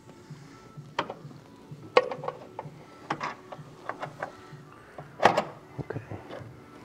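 Sharp clicks and knocks of hard plastic and metal car parts being handled and fitted in an engine bay. The loudest come about two seconds in and just after five seconds. Background music with a steady beat plays underneath.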